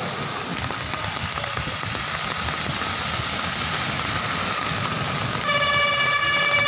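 Steady hiss of heavy rain and car tyres swishing through floodwater on a street. About five seconds in, a vehicle horn starts sounding one steady note.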